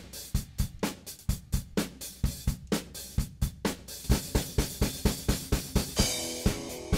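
Background music with a steady drum beat; pitched melody notes come in about six seconds in.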